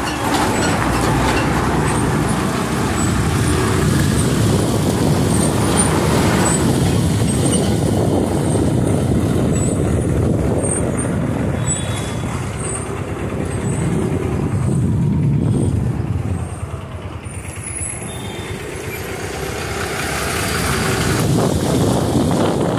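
Road and traffic noise heard from a moving motorbike: engine and tyre noise, with a bus running close alongside at the start. The noise dips briefly about two-thirds of the way through and builds again near the end.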